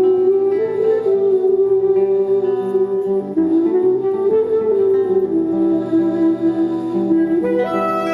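Music: a melody of long held notes that slide slowly between pitches, over steady lower notes.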